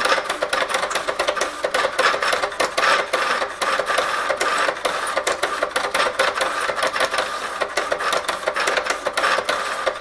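HP 7475A pen plotter drawing a schematic: its pen carriage and paper drive whirring in quick start-stop moves, with rapid clicking throughout.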